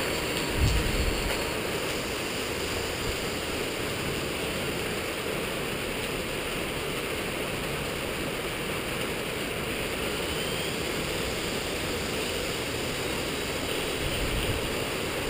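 Steady rushing hiss of rain and wind, with a small Skyartec Wasp V3 electric RC helicopter flying low under it.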